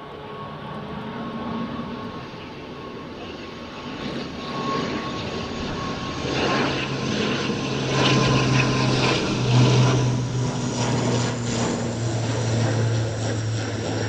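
ATR 72-500 twin-turboprop airliner's engines and propellers droning on final approach. The sound grows steadily louder as the aircraft comes close, loudest a little past halfway, with a steady low hum under a rushing noise.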